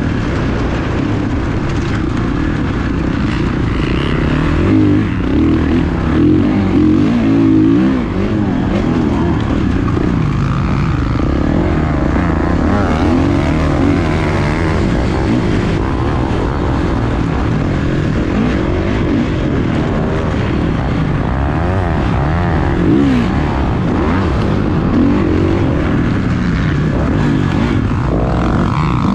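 Motocross bike engine running hard under race conditions, its revs rising and falling over and over as the throttle opens and closes.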